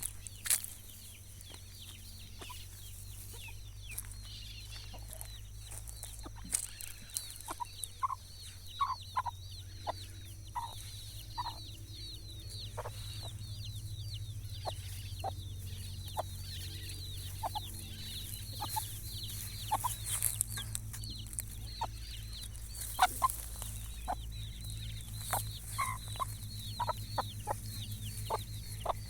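Chickens clucking in short notes over a dense chorus of high, falling chirps, with a low steady hum underneath.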